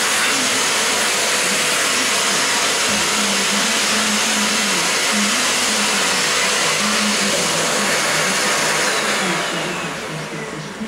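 Vacuum cleaner running steadily, then switched off near the end, its motor whine falling as it spins down.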